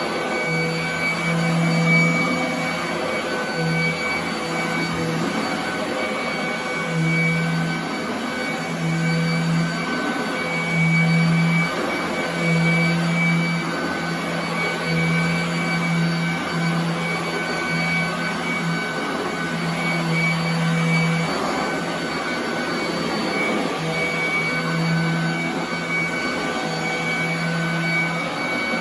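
Royal commercial vacuum cleaner running steadily on carpet with a high motor whine, and a low hum that comes and goes about once a second as it works.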